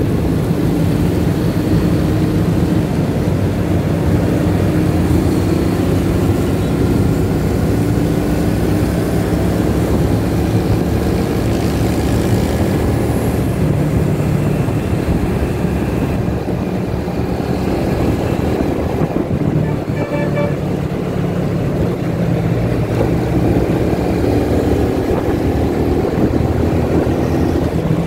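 Motorcycle engine running steadily at cruising speed, heard from the rider's seat, its pitch drifting a little, amid the steady noise of surrounding traffic.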